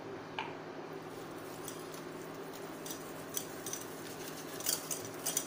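Wire whisk clinking and scraping against a stainless steel mixing bowl of thick biscuit batter, in light irregular clicks that get louder near the end. A steady hum, from the induction cooktop heating the steamer water, runs underneath.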